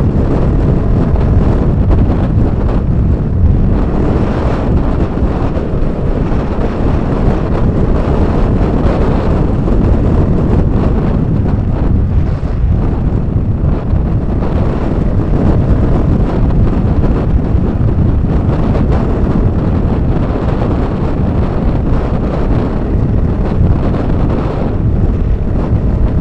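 Wind buffeting the microphone of a camera on a moving motorcycle, a loud steady rush over a low rumble of engine and road noise.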